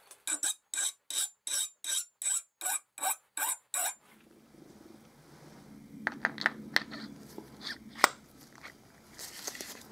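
A hand file being pushed across a piece of steel key stock in even rasping strokes, about eleven of them at a little under three a second, stopping about four seconds in. Then a few light metallic clicks and taps, the sharpest about eight seconds in.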